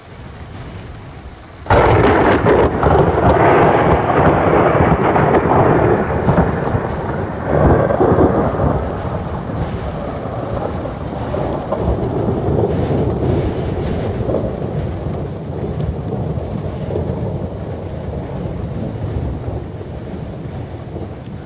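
Thunder: a sudden loud crack about two seconds in that turns into a long rolling rumble. The rumble swells again around seven seconds in, then slowly fades.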